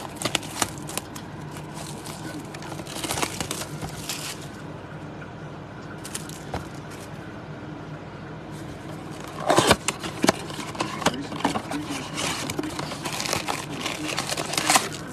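Plastic shrink wrap crinkling and tearing as it is stripped off a cardboard trading-card blaster box, and the box being handled and its flaps opened. The crackling comes in irregular spells and is loudest about ten seconds in, with a faint steady low hum underneath.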